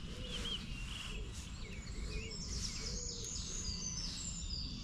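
Small birds chirping in short, high calls over a steady low rumble of outdoor background noise.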